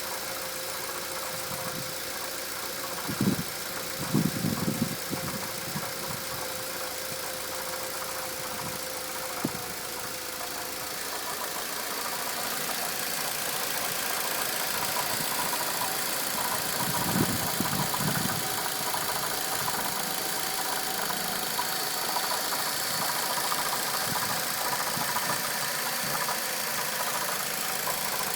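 Mitsubishi Lancer Evolution X MR engine running steadily, then growing louder after about ten seconds. A few dull low knocks come through, in a cluster about three to five seconds in and again near the middle: the abnormal knocking the owner hears at idle and when accelerating.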